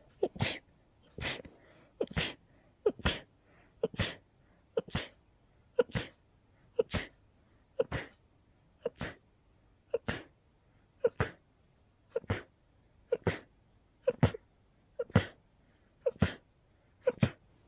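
A person sneezing over and over in a rapid fit, about one sharp sneeze a second, some eighteen in a row. The uploader blames the fit on a cold on top of allergies.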